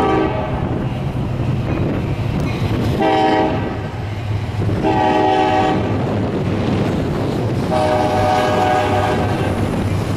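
Union Pacific diesel locomotive's air horn: the end of one blast right at the start, then three more blasts, each longer than the one before, the last nearly two seconds. Under the blasts is a steady low rumble from the approaching train.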